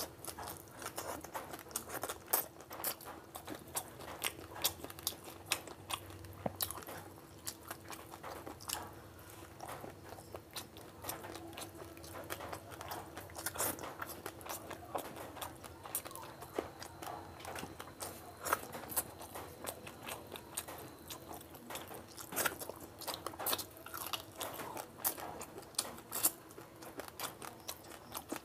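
A person eating chicken curry and rice by hand close to the microphone: continuous chewing and biting, with frequent sharp wet smacks and crunches, over a faint steady hum.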